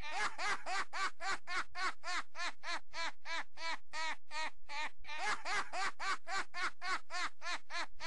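Rapid, evenly repeating squeaky calls, about five a second, each rising then falling in pitch. They run on without a break like a looped sound.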